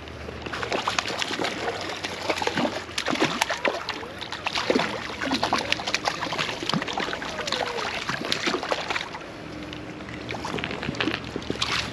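Sloshing and splashing in shallow creek water, with many quick clicks and taps, as a hooked trout is brought in and landed.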